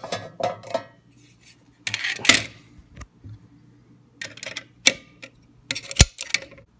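Metal clicks, scrapes and clatter of a payphone's steel coin box and its brass shutter plate being handled and set down on a tile countertop. A scraping clatter comes about two seconds in, and a single sharp knock comes near the end, the loudest sound.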